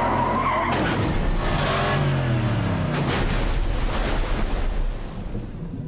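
Car skidding and swerving off the road: tyre and engine noise with a falling whine over a deep rumble, dying down about five seconds in.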